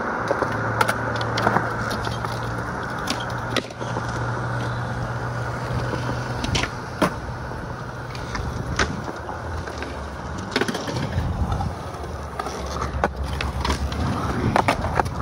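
Skateboard wheels rolling on smooth concrete with a steady low hum, broken every few seconds by sharp wooden clacks of the board being popped and landed.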